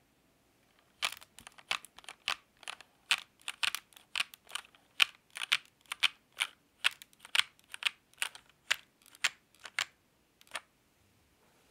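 Redragon K631 PRO SE mechanical keyboard keys pressed one at a time, about two clicks a second. The clicks start about a second in and stop near the end.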